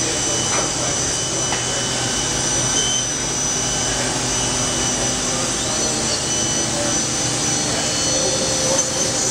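Star SV-32JII Swiss-type CNC lathe running a machining cycle, a steady mechanical noise with coolant spraying over the cutting zone and a couple of steady high whines. A higher whine rises in about halfway through and then holds.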